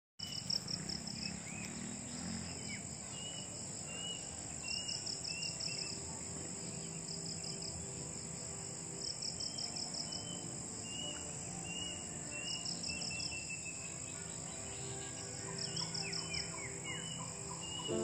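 Wild birds calling with short chirps about once a second, a few quick falling whistled notes among them, over a steady high insect drone. Bursts of rapid pulsing insect trills come and go every few seconds.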